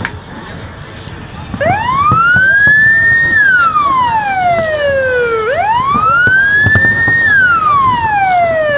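Electronic siren wailing: a slow rise in pitch followed by a longer fall, repeated about every four seconds, starting about a second and a half in.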